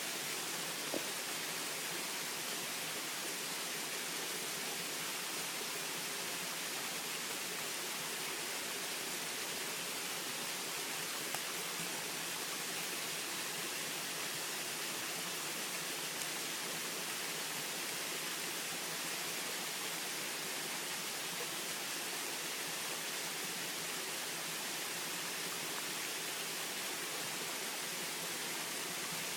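Small waterfall splashing down rock: a steady, unbroken hiss of falling water.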